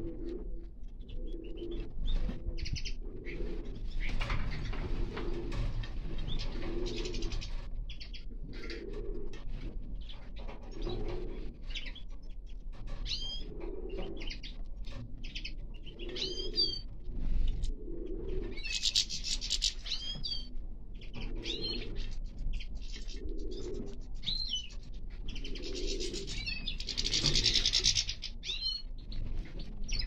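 Finches calling in short high chirps, with a pigeon cooing over and over at an even pace beneath them. Two louder flurries of wing flapping, about two-thirds of the way in and near the end.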